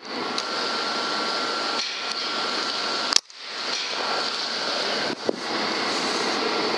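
Steady rushing noise with a faint high whistle through the first half, cut off abruptly just after three seconds and broken again briefly near five seconds.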